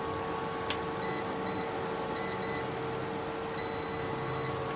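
Digital multimeter beeper sounding as the probes touch points on a laptop motherboard: several short high beeps, then one longer beep near the end. A steady hum runs underneath, and there is a single click about a second in.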